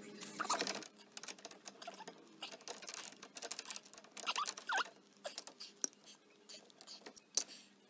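Pipe wrench working a galvanized steel threaded pipe fitting: irregular metal clicks and scrapes with a few short squeaks, as a leaking joint on the hot-water line is tightened.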